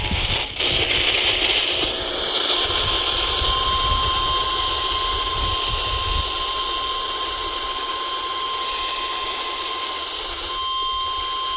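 Loud hiss of radio static from a weather-radio receiver. About two and a half seconds in, a steady single-pitched alarm tone, the NOAA Weather Radio 1050 Hz warning alarm tone, starts over the static and holds until it cuts off abruptly at the end.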